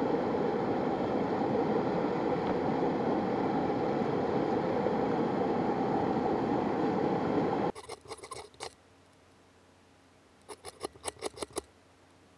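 Steady rushing of river water, which cuts off abruptly about eight seconds in. Then come short, sharp scraping strikes in two quick clusters, a knife spine struck along a ferro rod to throw sparks.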